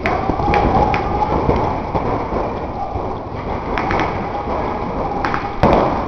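Paintball markers firing in scattered sharp shots, a handful in all with a cluster near the end, over a steady rushing noise.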